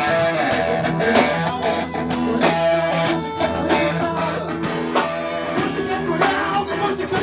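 Rock music led by guitar.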